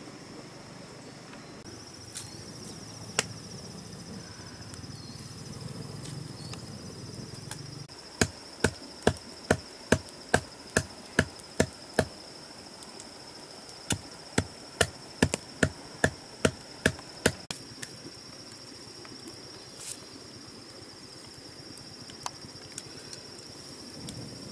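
Insects buzzing steadily at a high pitch, with two runs of sharp, evenly spaced knocks, about two and a half a second, from something hard being struck over and over.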